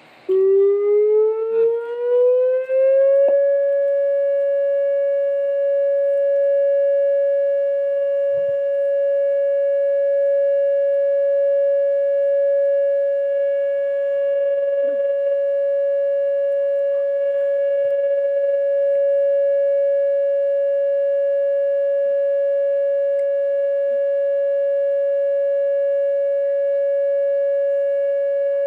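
Whelen WPS-2905 electronic warning siren sounding its steady alert tone during a siren test. The pitch rises over the first three seconds, then holds one unbroken tone.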